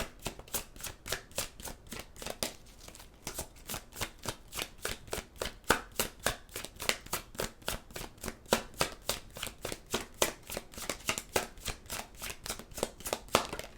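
A deck of tarot cards being shuffled by hand, the cards slapping and riffling in quick repeated clicks, about four a second, stopping just before the end.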